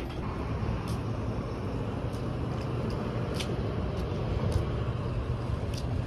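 Steady low rumble of background noise, with a few faint short ticks.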